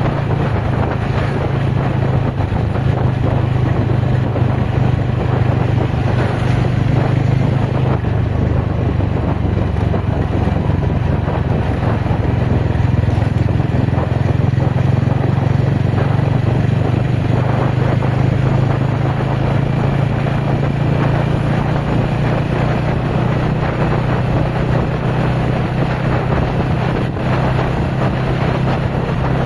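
TVS Ronin motorcycle's single-cylinder engine running steadily under way, with wind buffeting the microphone. The engine note changes about eight seconds in.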